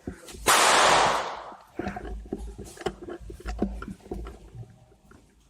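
A loud hissing burst lasting just under a second, then scattered sharp clicks and knocks.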